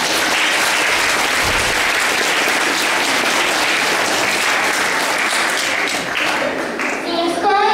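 An audience applauding steadily, easing off near the end as a child's voice begins.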